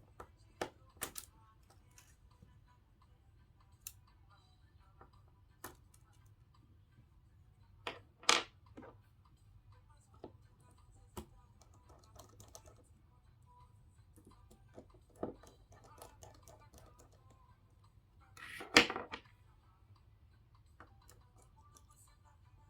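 Scattered light clicks and taps of small repair tools on an opened Samsung A50 phone as its charging board is unscrewed and its cable connectors unclipped. There is a sharper knock about eight seconds in and a louder brief clatter about nineteen seconds in.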